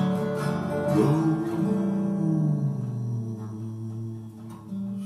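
Acoustic guitar strummed, its chords left to ring and slowly fade.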